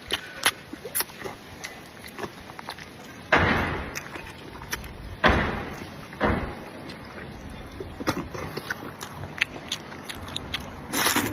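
Close-up eating sounds: many small clicks and smacks of chewing and handling food, with four louder, brief rustling or scraping bursts spread through.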